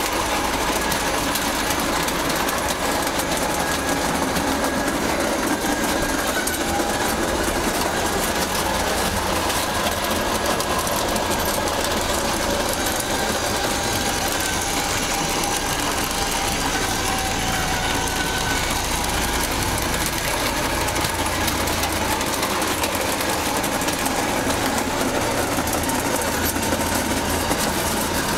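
Ace Trains O gauge model locomotive running on the layout track with its coaches, giving a steady mechanical running noise and a faint wavering motor whine.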